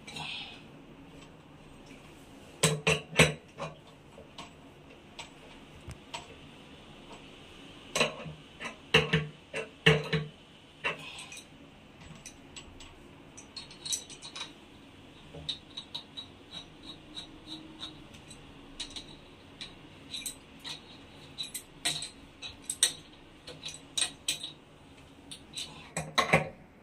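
Metal clinks, taps and knocks of an adjustable wrench and fittings as braided steel water-heater hoses are tightened onto chrome angle valves. The loudest knocks come in clusters about three seconds in and again around eight to ten seconds in, followed by many lighter ticks.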